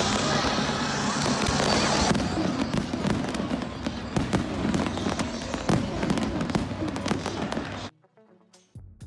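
Stadium fireworks going off: a dense run of crackling bangs over a steady rush of noise, which cuts off suddenly near the end.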